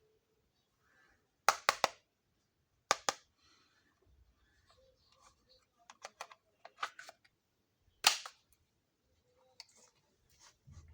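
Sharp clicks and clacks of small plastic toy kitchen pieces being handled and set down: a quick triple click, a double, a run of lighter taps, then one loud clack.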